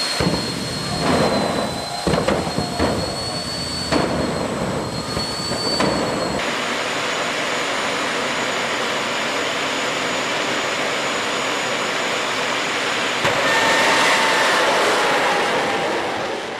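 Jet-engined drag cars at the start line: a high turbine whine with a string of sudden loud afterburner blasts over the first six seconds. Then a steady jet engine noise that swells louder near the end as the cars launch down the strip.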